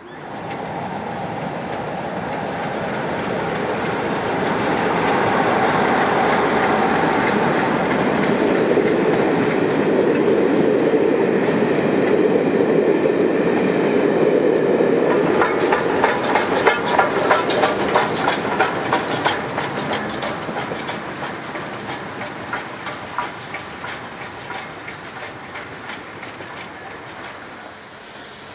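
Steam-hauled passenger train passing close by: a rumble builds and holds. About halfway through, the coaches' wheels start clicking rhythmically over the rail joints, then the sound fades as the train draws away.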